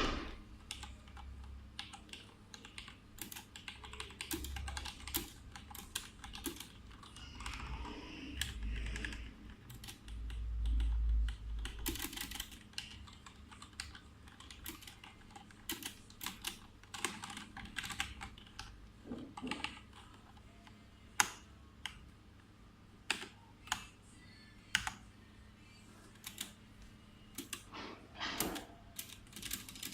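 Typing on a HyperX Alloy FPS Pro mechanical keyboard with Cherry MX Red linear switches: irregular key clacks, denser in the first half, with a low rumble around ten seconds in. Later come sparser, louder single key presses.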